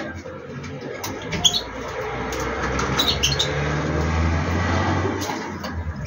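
A passing motor vehicle: a low engine hum that swells to a peak about four to five seconds in and then fades. A few short high chirps from a linnet sound about a second and a half and three seconds in.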